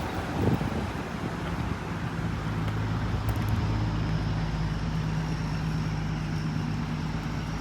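Road traffic noise, with a vehicle engine's steady low hum setting in about a second and a half in.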